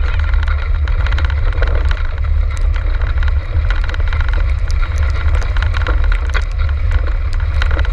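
A six-dog racing cart rolling fast over a rough trail: a steady low rumble and rattle from the wheels and frame, with many small sharp clicks and wind buffeting the microphone.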